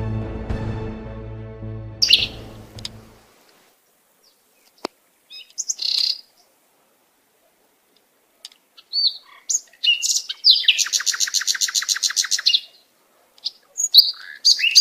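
Sustained background music fades out in the first three seconds, then birds chirp: scattered short high calls and, about ten seconds in, a rapid trill of roughly nine notes a second lasting about two seconds.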